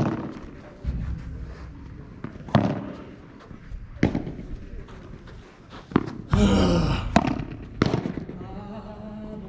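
Padel rally: a ball struck back and forth with rackets, sharp pops about every one to two seconds. A player's loud shout comes about six and a half seconds in, with some voices near the end.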